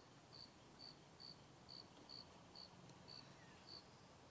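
Faint cricket chirping in a steady rhythm, short high chirps about twice a second, over near silence.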